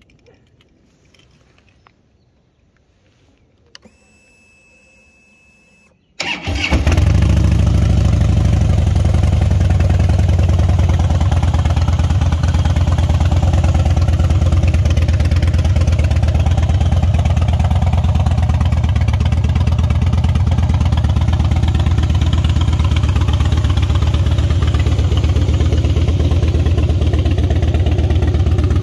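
A Harley-Davidson Rocker's V-twin engine is started about six seconds in, after a faint whine. It catches at once and runs loud and steady.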